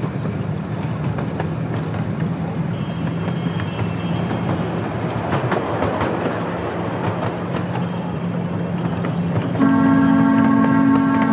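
Ride-on miniature train running along its track with a steady rumble and rail clatter. Near the end its horn sounds a held chord.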